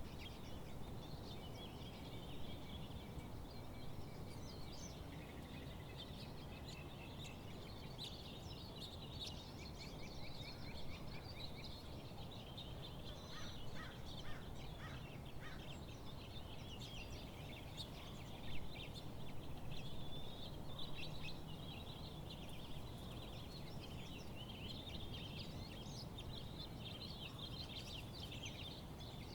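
Several wild birds singing and calling at once: many overlapping chirps and quick trills, over a steady low background noise.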